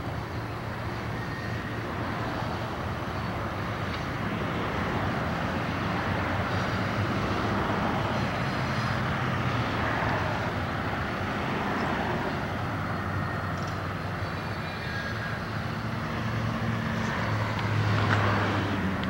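Freight train pulling away down the line: the low, steady drone of its diesel locomotive working, over the rumble of the cars rolling on the rails, swelling a little near the end.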